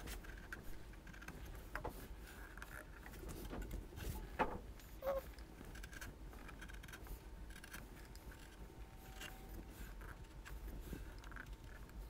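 Small palm carving gouge taking short cuts through the scorched surface of a wooden bowl into the clean wood beneath: faint, irregular scratchy slicing and scraping, with a couple of sharper clicks about four and five seconds in.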